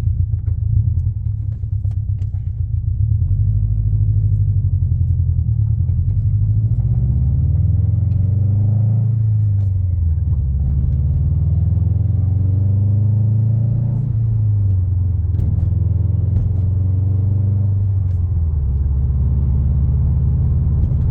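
Subaru WRX STI's turbocharged flat-four engine running as the car is driven, a low rumble whose pitch climbs and falls twice as the revs rise and drop.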